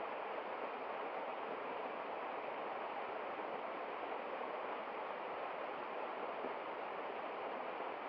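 Small waterfall splashing down a rocky bank: a steady, even rush of falling water.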